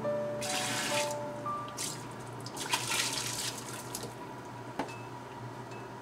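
Water running and splashing into a stainless steel kitchen sink in two short spells while a pot is handled at the sink.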